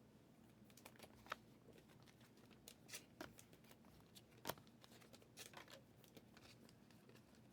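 Faint handling of trading cards: soft sliding with scattered light clicks and ticks as the cards are flipped through. The loudest click comes about four and a half seconds in.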